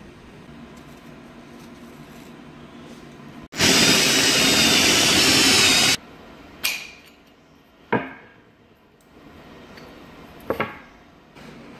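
Cordless drill driving a 1-1/2-inch bi-metal hole saw through a pine vanity top, cutting the drain hole: a loud, steady cut for about two and a half seconds that starts and stops abruptly. Then three sharp knocks, the last a quick double.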